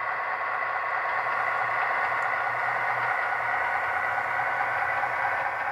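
Sound decoder in an HO-scale GP15-1 model locomotive playing a diesel prime mover through its small onboard speaker, running at a steady, unchanging engine speed as the model creeps in reverse at low speed.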